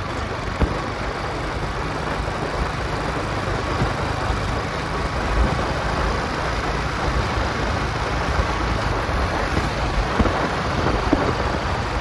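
Motorcycle on the move: wind buffeting the microphone over steady engine and road noise, with a few short knocks.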